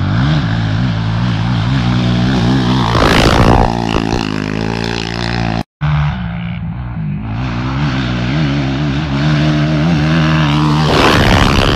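Suzuki LT-R450 sport quad's single-cylinder four-stroke engine revving up and down as it is ridden hard on a dirt track. It is loudest as the quad passes close about three seconds in and again near the end. A brief gap of silence comes a little before halfway.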